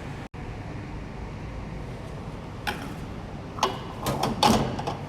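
A few sharp clicks and knocks, with a cluster of louder clatter near the end, from a metal portafilter and basket being handled. A steady low hum runs underneath.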